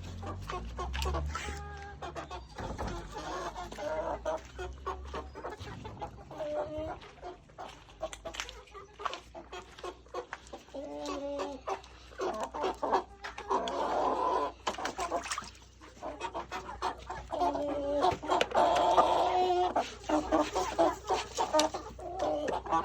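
Chickens clucking, a run of short calls that gets louder and busier, with several birds calling at once, a little over halfway through and again near the end.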